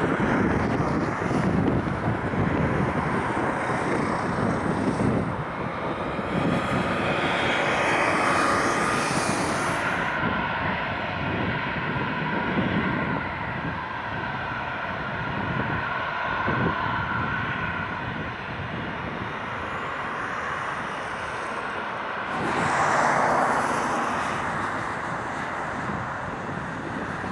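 Boeing 737-800's CFM56-7B jet engines running at taxi power, a steady roar with a faint whine that swells briefly near the end, over wind rumbling on the microphone.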